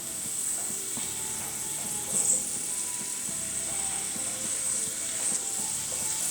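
Chopped onion and spring onion sizzling in a little olive oil in a pan, with scattered light clicks as they are moved around.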